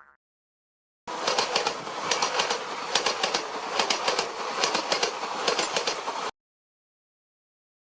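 Train sound effect: a passing train's rumble with a run of repeated wheel clacks, starting about a second in and cutting off abruptly about five seconds later.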